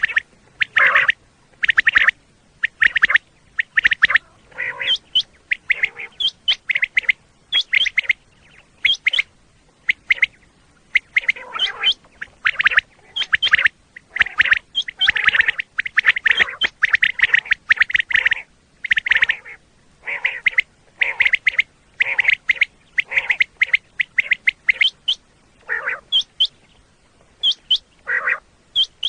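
Common quail calling over and over in short, sharp notes, about two a second with brief pauses between runs.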